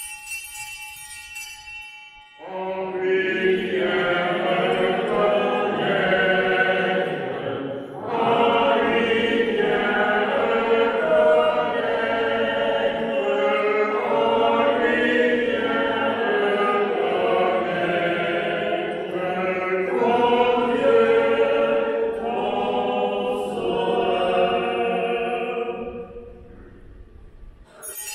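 Small altar bell rings briefly at the start and again near the end, as at the elevation during the consecration at Mass. In between, voices sing a slow liturgical chant in phrases, with short breaks between lines.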